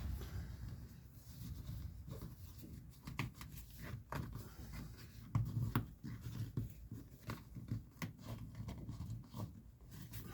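Irregular light clicks, knocks and rustles from seatbelt hardware and webbing being handled and adjusted, as the slack is pulled through the lap belt.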